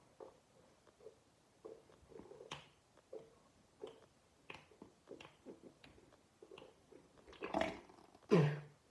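A mouth rinse being swished around inside closed cheeks in short, soft, wet squelches, then spat out into a sink in two loud bursts near the end.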